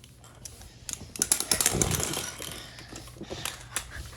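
Rapid, irregular clicking and clattering of small hard objects being handled, densest about a second in and thinning out after about three seconds.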